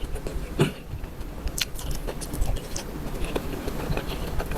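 Close-up eating sounds: chewing and biting, with irregular small clicks and crackles.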